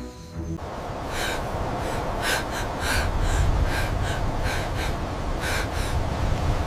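A person's quick, gasping breaths, one after another, over a low rumble; background music cuts off just before they start.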